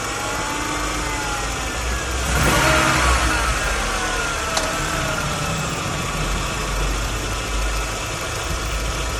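VW Bora 2.0 four-cylinder petrol engine idling steadily with a new belt tensioner and ribbed belt fitted, with no belt squeal. A brief louder rush of noise comes about two and a half seconds in.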